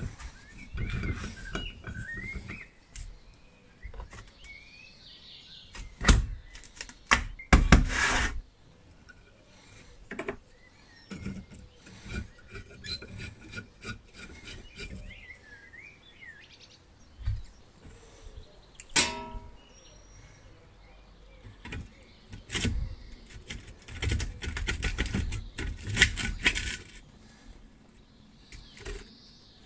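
Hand tools working loose the rusted steel parts of a 1950s Harper Beatrice 33 boiling stove: a string of sharp metal knocks and clanks, loudest about six and eight seconds in. A ringing metal clink comes a little past the middle.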